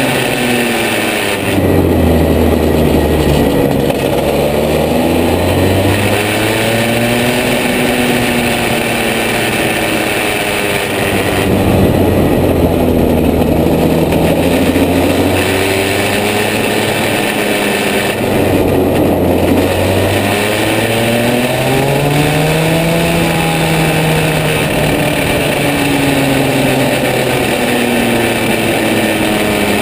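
Rotax 125 cc two-stroke kart engine at racing speed, its pitch dropping sharply about four times as the throttle is lifted for corners and climbing steadily again as it accelerates out of them.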